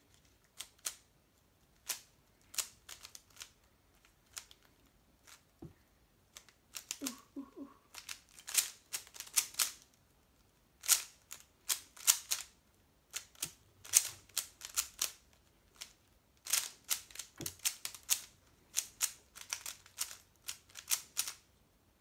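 Stickerless 3x3 Rubik's cube being solved by hand: quick, irregular plastic clicks of its layers turning, in fast runs broken by short pauses.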